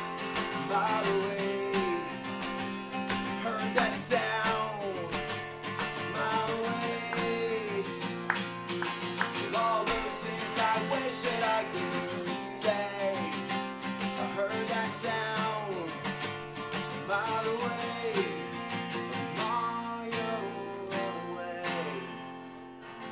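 Acoustic guitar strummed with a male voice singing over it, the punk song played solo and unplugged; it grows quieter just before the end.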